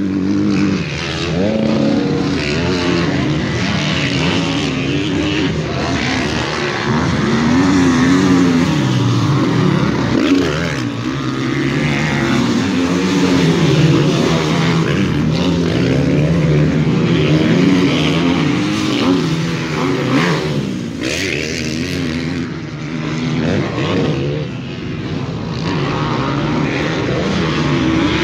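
Several motocross dirt bikes racing around the track, their engines revving up and dropping off again and again as they take the jumps, with more than one engine heard at once.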